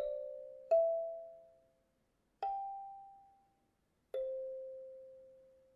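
Wooden kalimba plucked slowly: three single notes about a second and a half apart, each ringing out and fading away, the last dying out near the end.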